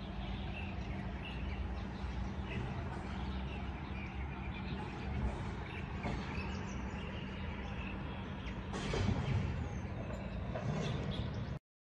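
City ambience heard from high up: a steady low rumble of distant traffic with small birds chirping on and off, and a louder swell about nine seconds in. The sound cuts off abruptly near the end.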